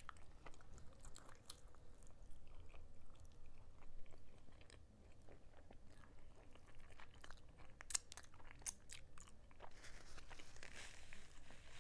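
Close-miked mouth sounds of someone chewing and biting a sticky honey-Dijon-glazed chicken drumstick, heard as scattered sharp clicks. A denser, hissy patch of sound comes in near the end.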